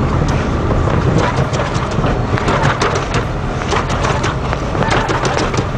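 The noise of a car heard from inside the cabin on the move: a steady low engine and road rumble, with a constant clatter of knocks and rattles over it.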